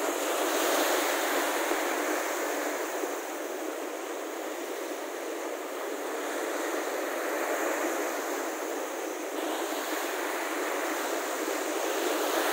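Baltic Sea surf: small waves breaking and washing in as foam over a sandy shore, a steady rushing hiss that swells louder a few times as waves come in.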